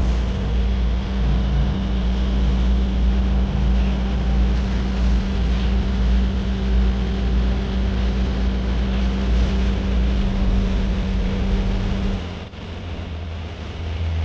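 Steady low engine drone with an even, wind-like hiss over it. The drone drops and changes character about twelve seconds in.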